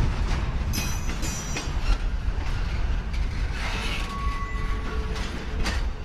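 A double-stack intermodal freight train rolling past on jointed track, its wheels rumbling steadily on the rails. A few sharp metallic clanks and creaks come from the well cars, and a short high wheel squeal sounds about four seconds in.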